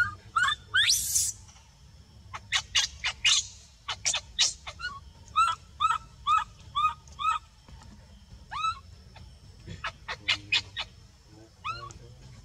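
Baby macaque crying in many short, high, squeaky calls, with a quick run of five alike calls about halfway through.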